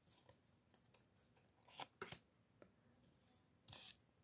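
Near silence broken by faint slides and rustles of Pokémon trading cards being moved through a handheld stack, one about two seconds in and another near the end.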